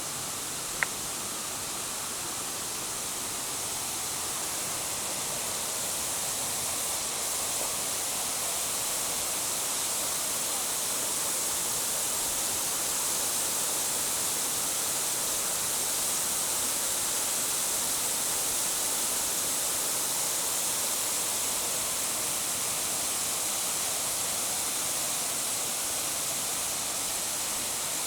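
Waterfall rushing steadily, growing slightly louder over the first ten seconds or so. A single brief sharp tick about a second in.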